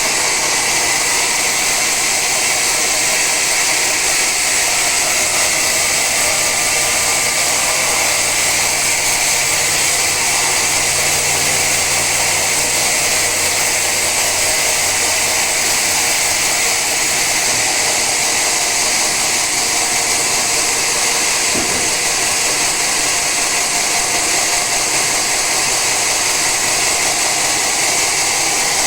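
Sawmill saw running steadily through a teak log, a loud even hiss of the blade in the wood with a low motor hum beneath it for the first half.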